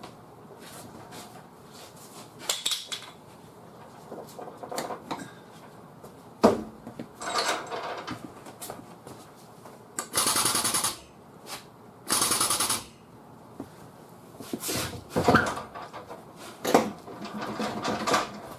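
Metal clanks and knocks of chain and pulling clamp during a frame-machine pull on a car's trunk lid. A little past halfway come two short, loud bursts of steady noise, each under a second, the loudest sounds here.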